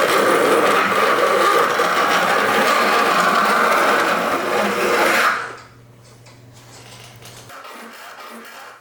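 A metal file drawn along the tooth line of a handsaw, rasping steadily over the teeth to joint them flat. The stroke stops abruptly about five seconds in.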